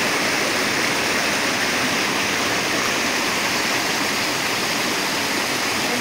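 Water of a rocky stream cascading and splashing over boulders: a steady, even rush of water.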